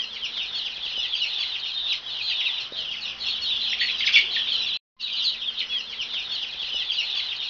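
Many domestic chicks peeping at once, a dense chorus of short, high, falling chirps that cuts out briefly a little under five seconds in.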